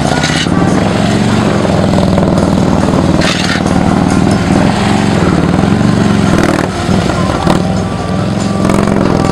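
Police motorcycle engine running at low speed, its pitch rising and falling over and over as the throttle is worked through tight, slow turns.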